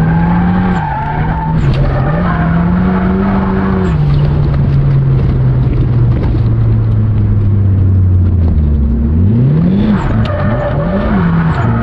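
Car engine running under hard driving while drifting, its revs high at first, sinking slowly for several seconds, then surging up and down twice near the end. Tyres skid and squeal through the corners.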